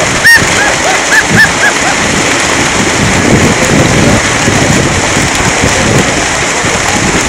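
Dense, continuous splashing of a mass of fish leaping and thrashing at the surface inside a raised fishing net. A sharp knock sounds about a third of a second in.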